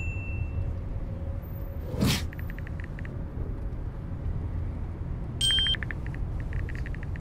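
Smartphone on-screen keyboard typing sounds: two runs of rapid, even soft clicks over a steady low rumble. A whoosh comes about two seconds in and a short bright beep a little after five seconds.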